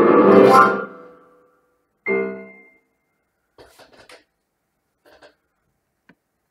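Portable electronic keyboard with a piano voice: a loud, dense chord cluster rings out and dies away in about a second, then one short chord about two seconds in. After that come only a few faint clicks and handling knocks.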